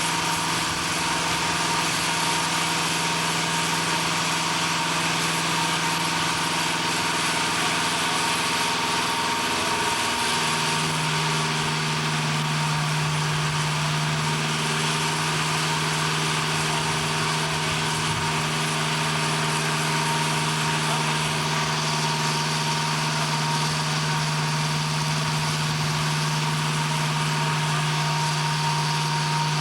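Heavy machinery running steadily, an engine-like drone with a higher constant whine and hiss over it; its low hum dips in pitch about ten seconds in, then settles a little higher and louder.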